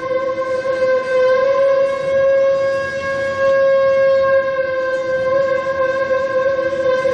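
Ney, the Mevlevi end-blown reed flute, holding one long breathy note with a slight waver.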